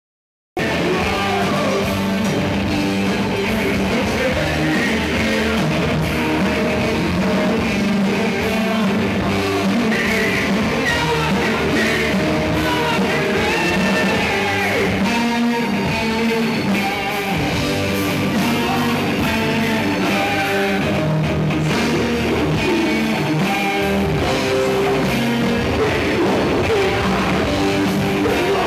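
Heavy metal band playing, with electric guitar and singing. The music starts suddenly about half a second in and stays loud and steady.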